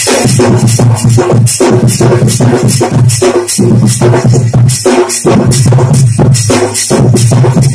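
Loud dance music with a steady drum beat, the music for the circle dance.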